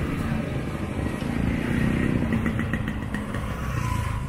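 A motorcycle engine running close by over steady street noise.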